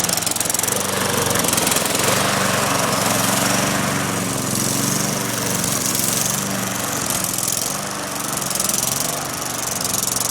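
Lawn mower engine running steadily with a rattly, buzzing note, kept going after a cold start.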